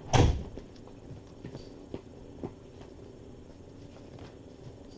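A single loud thump just after the start, then a few light scattered taps and knocks as kittens scamper and play.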